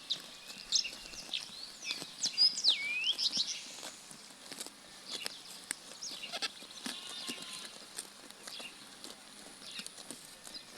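Sheep grazing up close, tearing and chewing grass in a steady run of crisp clicks. Over it come high chirps and sweeping whistles, busiest in the first few seconds, with a quick trill about two-thirds of the way through.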